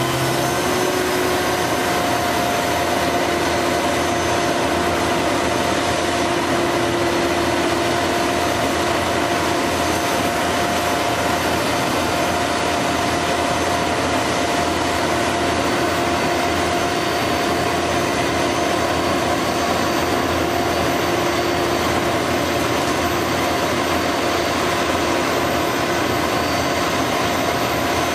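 Concrete boom pump truck's diesel engine running steadily, with a steady whine over the engine noise.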